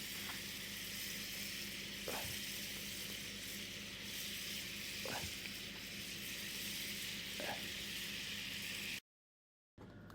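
Food frying over a campfire: a steady sizzle with a few faint pops. It cuts off abruptly near the end.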